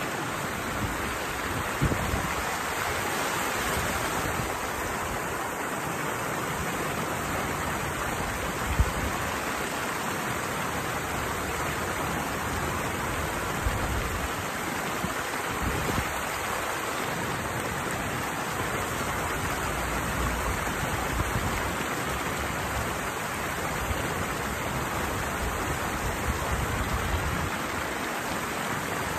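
Water rushing steadily over a small cascade, a constant wash of noise, with a single sharp knock about nine seconds in.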